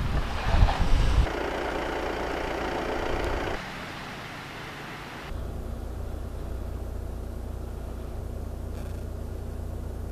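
Gusty wind buffeting the microphone with a low rumble, with strong gusts in the first second or so and a steadier drone from about halfway through, as it drives dry snow across an exposed road.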